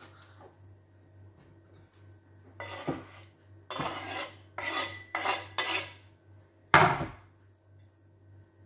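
A knife scraping chopped tomatoes off a wooden cutting board into a glass salad bowl, in five short scrapes. A single sharp knock, the loudest sound, follows about seven seconds in.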